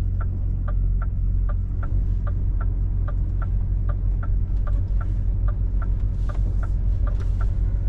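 Heavy truck's diesel engine running at low speed, heard inside the cab as a steady low hum, with the turn-signal indicator ticking about three times a second as the truck turns through a roundabout.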